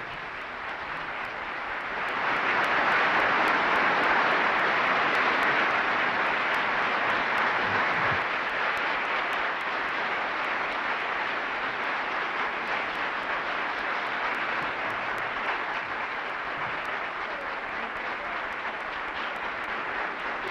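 Audience applauding: a dense wash of clapping that swells about two seconds in, stays loudest for several seconds, then settles a little lower.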